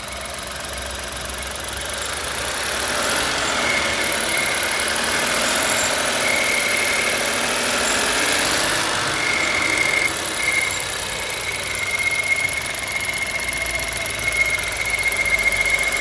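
1.0-litre petrol car engine running with a high-pitched whistle, which comes and goes at first and then holds steady from about nine seconds in. The whistle shows up only once the engine is warm, not from cold.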